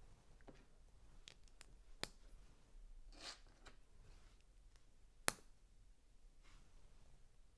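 Plastic LEGO bricks clicking and tapping as they are handled and fitted. There are a few light ticks, a sharp click about two seconds in, a soft rustle, and the loudest click about five seconds in.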